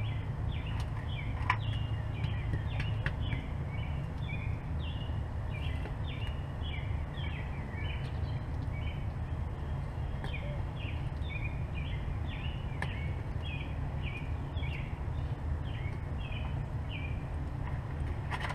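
Birds chirping in the background, short downward-sliding chirps repeated a couple of times a second, over a steady low rumble.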